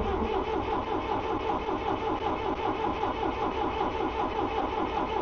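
The starter on a 1972 Allis-Chalmers M65 road grader cranks its gasoline engine over with a fast, even pulse, then cuts off suddenly. The engine is hard-starting, and feeding the ignition coil 12 volts straight from the battery has not cured it.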